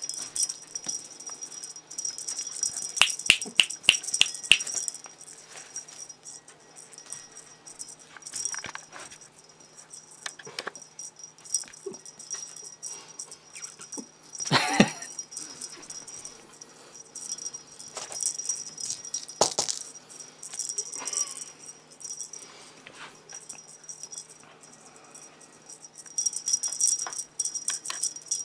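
Small bell on a cat teaser toy jingling as the toy is shaken, in several bouts, with a quick run of sharp clicks about three seconds in and a few louder knocks among it.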